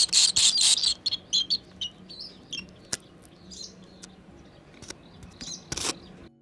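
Barn swallows chirping at the nest: a loud burst of rapid high-pitched chirps in the first second, thinning to scattered chirps. A single click comes about three seconds in, and a brief noisy thump near the end.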